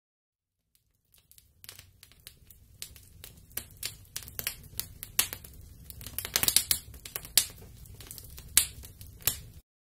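Wood fire burning in a stone hearth, crackling with irregular sharp pops over a low rumble of the flames. It fades in after about a second and cuts off suddenly near the end.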